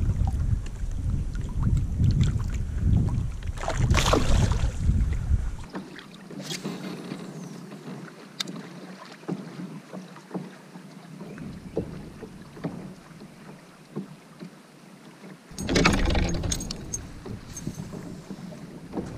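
Water splashing and lapping against a kayak, with wind rumbling on the microphone in the first few seconds and again near the end, and a few small clicks in the quieter middle stretch.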